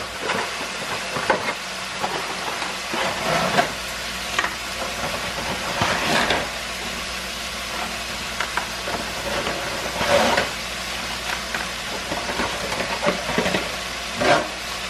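Ground beef and Italian sausage sizzling steadily as they brown in a pan. A few short rustles and knocks come through it as dry lasagna noodles are handled out of a cardboard box and into a pot.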